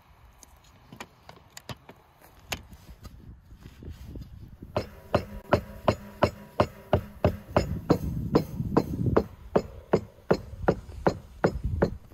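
A large cleaver-like knife chopping lamb liver and lungs into mince on a wooden tree-stump block: a fast, even run of sharp strikes, about three or four a second, starting about five seconds in after a few scattered knocks.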